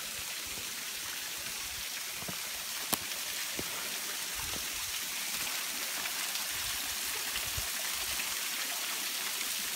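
Low-flow waterfall of about six to seven metres, thin streams trickling and splashing down a stepped rock face, giving a steady hiss of falling water. One sharp click about three seconds in.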